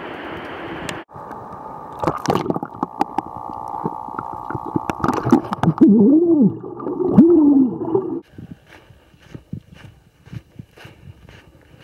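A steady rush of noise, likely the waterfall in view, cuts off about a second in. Then comes muffled rumbling and gurgling close to the microphone, with a few loud rising-and-falling hoots. In the last few seconds, footsteps on a dirt forest trail, about two steps a second.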